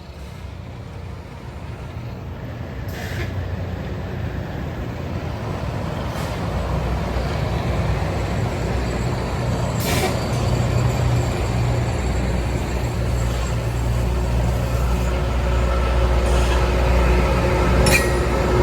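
Loram rail grinder train moving slowly along the track, its engines and machinery running with a low drone that grows steadily louder as it comes closer. A few brief sharp clicks sound about three seconds in, about ten seconds in and near the end.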